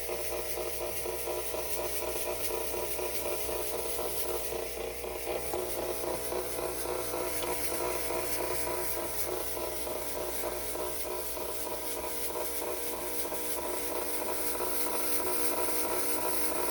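Fog machine running, its pump giving a steady buzz over a hiss of fog being blown out.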